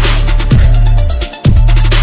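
Loud electronic dance music with a heavy bass line and a fast, steady beat; the music drops out briefly about 1.4 s in, then comes back.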